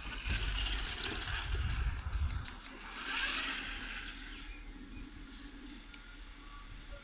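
Electric eight-wheel-drive RC crawler driving over gravel and dirt: a thin high motor whine with dense clicking and rattling from the gear drivetrain and its tyres on loose stones, loudest about three seconds in.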